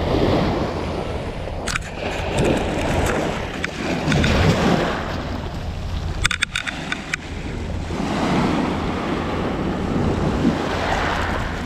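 Small waves breaking and washing up a pebble beach, the rush of surf swelling and falling back every few seconds, with wind buffeting the microphone. A short run of sharp clicks about six seconds in.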